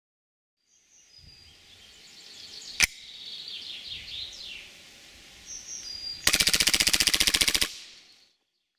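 WE G18C Gen4 gas blowback airsoft pistol firing a single shot about three seconds in, then a rapid full-auto burst lasting about a second and a half. Birds chirp in the background between the shots.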